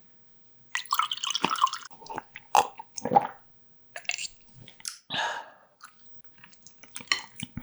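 A person chewing food close to the microphone. The mouth sounds come in irregular bunches of short clicks, starting about a second in.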